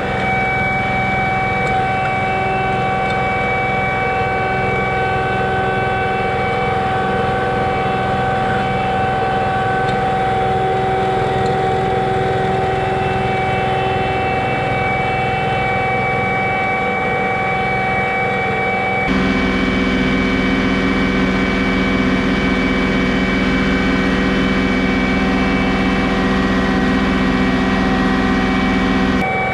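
John Deere 2038R compact tractor's three-cylinder diesel engine running at a steady speed. The engine note changes abruptly about 19 seconds in.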